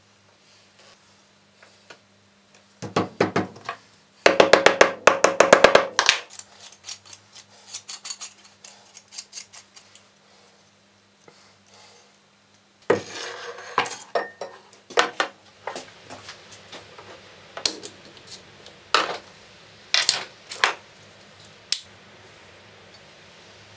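Metal hand tools and a steel C-clamp clinking and rattling: two bursts of rapid rattling clicks a few seconds in, a rustling scrape about halfway, then scattered knocks and clicks.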